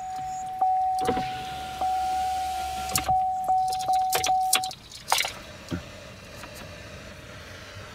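Inside a car cabin, an electric window motor runs for about two seconds. Under it is a steady high electronic tone with scattered clicks, which stops about halfway through.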